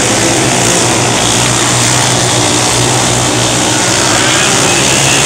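Wingless mini sprint cars racing on a dirt oval, several engines running together in a loud, steady drone.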